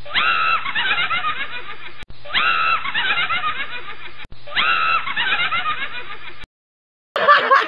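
A laughing sound effect: the same short clip of a snickering laugh, a drawn-out opening note followed by quick 'ha-ha' pulses, played three times back to back. It stops abruptly about six and a half seconds in, and a brief loud burst follows near the end.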